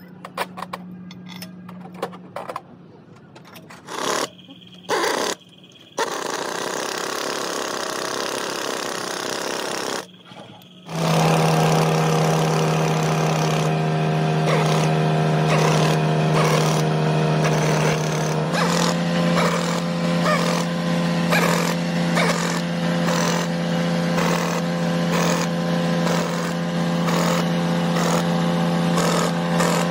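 Short bursts of workshop clatter, then a machine starts running steadily and loudly with a constant hum; about seven seconds after it starts, its pitch steps up slightly and it runs on steadily.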